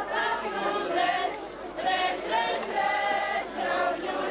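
A group of voices singing a Moravian folk song together, with held notes that rise and fall.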